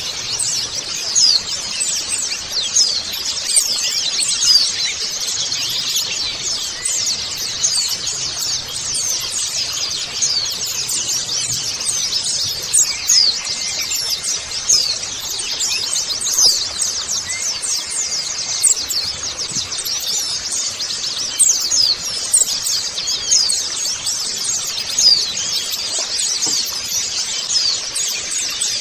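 A flock of white-eyes (pleci) twittering continuously: many high-pitched chirps overlapping with no break.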